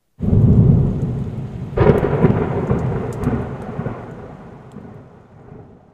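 Thunder sound effect: a sudden low rumble with a second, brighter crack about two seconds in, rolling on and slowly fading away.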